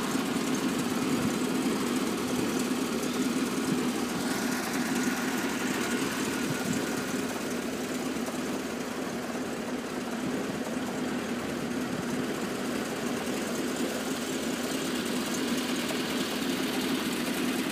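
UAZ-469's four-cylinder petrol engine idling steadily, with no revving.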